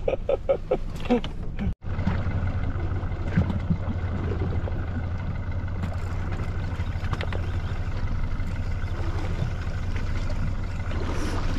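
A fishing boat's engine running steadily with a low, even drone. It starts abruptly just under two seconds in, right after a brief stretch of voices.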